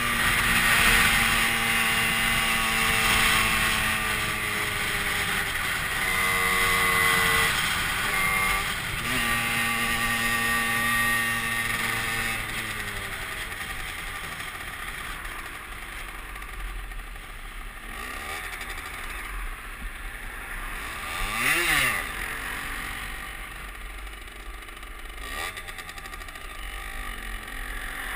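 Derbi Senda 50cc two-stroke moped engine on the move, its pitch climbing and dropping several times as it accelerates through the gears and eases off. The engine then runs lower and quieter while filtering slowly past queued traffic, with a brief louder rush about three-quarters of the way through.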